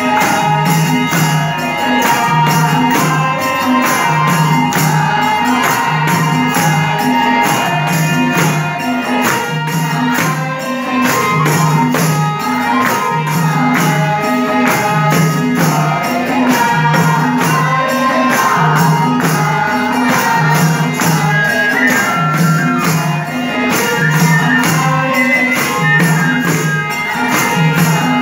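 Live devotional folk music with harmonium, a low drum beat about once a second, and fast jingling percussion keeping time.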